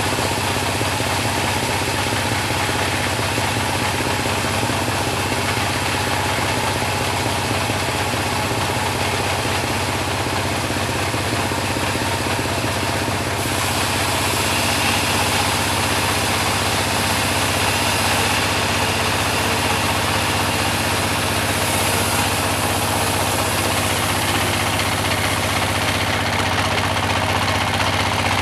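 Type 26 bandsaw mill running steadily with a low, even hum. About halfway through, a louder high hiss joins and continues.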